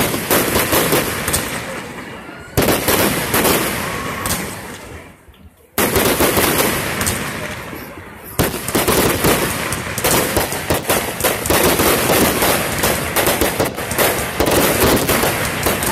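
Aerial fireworks exploding overhead: a loud burst at the start, another about two and a half seconds in and another near six seconds, each dying away. Then from about eight seconds a dense, rapid run of pops and crackles that does not let up.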